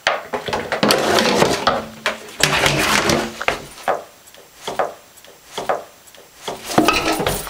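A toilet plunger's wooden handle knocking and scraping against the side of a bathtub in irregular sharp knocks, louder and busier at first and sparser from about halfway.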